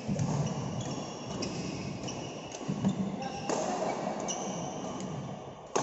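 Badminton racket striking a shuttlecock, two sharp hits about two seconds apart, over short high squeaks of court shoes during footwork.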